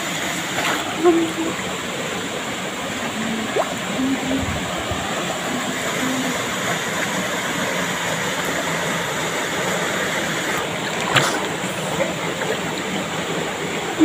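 Small waterfall pouring into a rock pool: a steady rush of falling and splashing water, with a sharp click about eleven seconds in.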